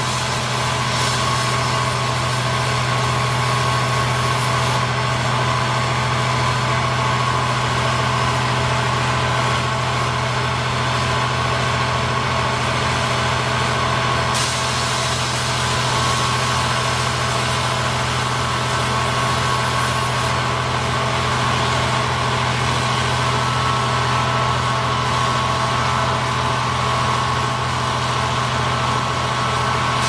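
General Motors (EMD) GT22CW diesel-electric locomotive's two-stroke diesel engine running steadily at full throttle in notch 8.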